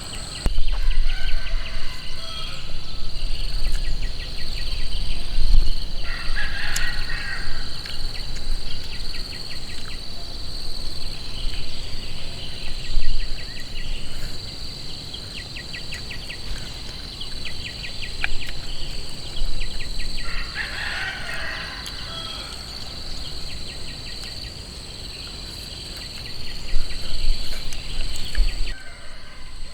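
Outdoor nature ambience: a steady high insect drone with rapid clicking trills, and two longer animal calls, most like a rooster crowing, about fourteen seconds apart.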